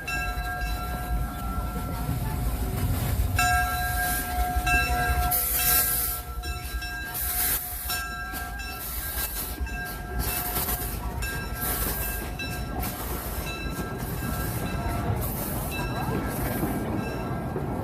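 1907 Baldwin steam locomotive and its train running on the track: steady running rumble with a high-pitched squeal held throughout, and from about five seconds in a series of sharp hissing beats, a little under one a second.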